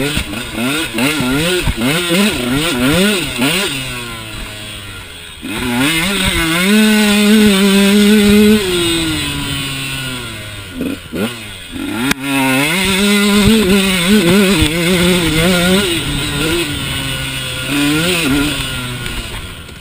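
2013 KTM 150 XC's single-cylinder two-stroke engine being ridden hard: quick revs up and down on and off the throttle, then two long steady pulls held at high revs, about six and thirteen seconds in, each falling away after a few seconds, with short blips near the end.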